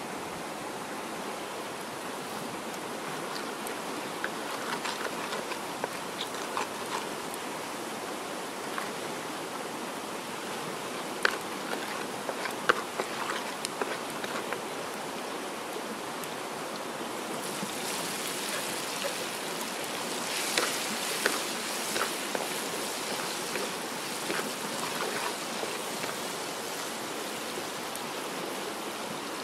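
Hot oil sizzling and crackling in a wok over a steady hiss, with scattered sharp pops. From just past halfway it turns brighter and hissier as dried chilies and spices fry in the oil.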